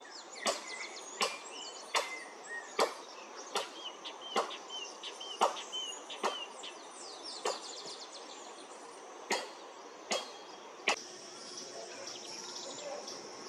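Sharp knocks, roughly one a second, that stop about two seconds before the end, over a steady high insect hum. Midway a bird gives a short run of about six quick repeated whistled notes.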